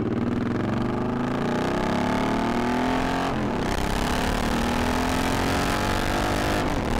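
Motorcycle engine accelerating, its pitch climbing, then dropping at a gear change about three and a half seconds in and climbing again, with another change near the end. Wind rushes past the microphone as the bike rides.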